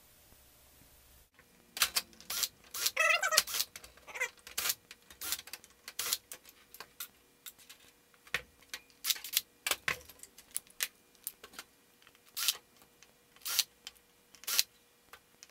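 Irregular clicks, taps and clatter of hard parts being handled in and around an opened steel desktop PC case, a dozen or more sharp knocks spread unevenly.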